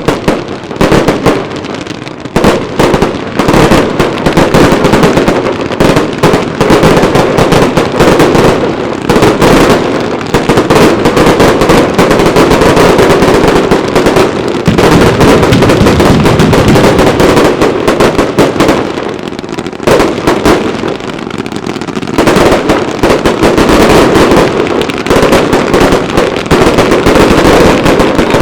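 Daylight fireworks going off in a dense, continuous run of loud bangs and crackling reports, many a second, easing briefly about two seconds in and again about two thirds of the way through.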